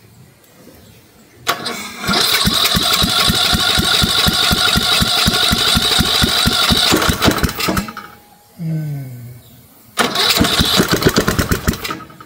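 Briggs & Stratton lawn mower engine turned over by its electric starter from a jumper cable, a fast, even chugging in two bursts: a long one of about six seconds and a shorter one near the end. It cranks without catching and running on its own.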